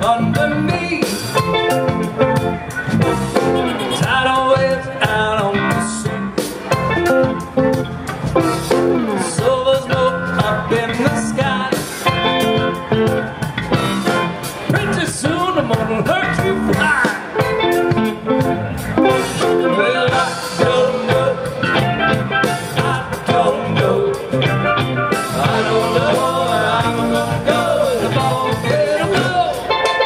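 Live band music: a man singing over electric guitar and drums.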